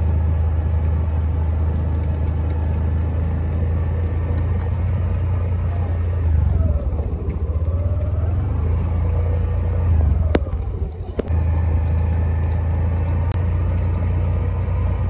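Motorcycle engine running steadily at low road speed, a constant low rumble that drops away briefly about ten and a half seconds in.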